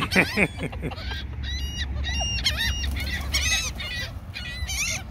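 A flock of seagulls calling over and over, many short overlapping cries, with a low steady rumble underneath.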